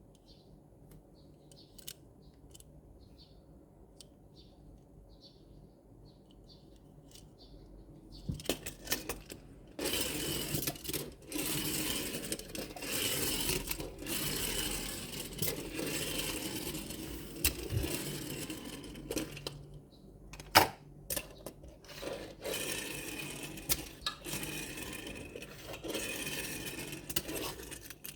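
Miniature diecast toy trucks being handled and unpacked: close-up rustling, rattling and clicking of small metal and plastic parts. It starts faint and becomes a dense run of handling noise with sharp clicks from about eight seconds in.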